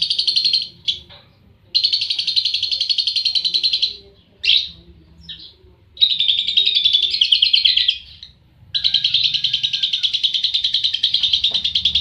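Caged lovebird chattering in long bouts of rapid, buzzy pulsed calls, each lasting two to three seconds, with a few short chirps between bouts.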